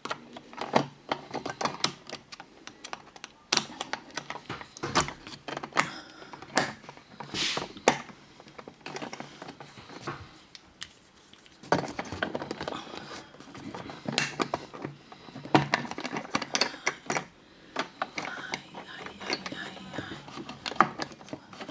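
Irregular metallic clicks, taps and rattles of a screwdriver and the parts of a metal curtain track being worked on, as the track is opened up to get at the cord mechanism inside.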